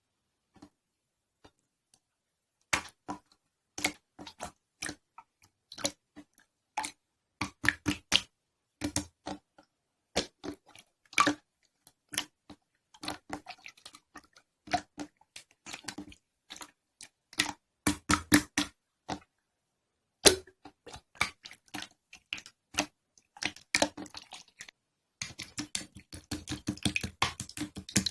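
Slime being squeezed and poked, giving irregular wet clicks and pops that begin a few seconds in and crowd into a fast run of clicks near the end.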